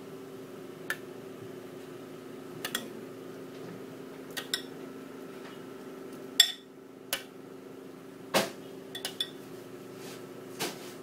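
A metal spoon clinking now and then against a glass bowl of salad dressing and the plates as the dressing is spooned over salads, a sharp clink every second or two. A steady low hum runs underneath.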